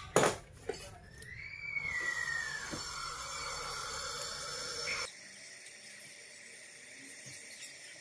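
A sharp click, then a small gas brazing torch hissing steadily as it burns on a copper refrigeration pipe joint, with a brief gliding whistle as the flame is set. About five seconds in the hiss drops suddenly to a quieter, thinner one.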